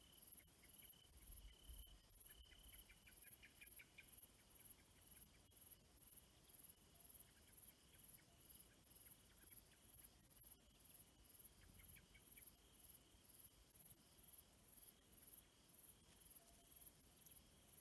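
Crickets chirping: a faint, very high-pitched chirp pulsing about twice a second over a steady, lower trill. Short runs of fast ticking come around three seconds in and again about twelve seconds in.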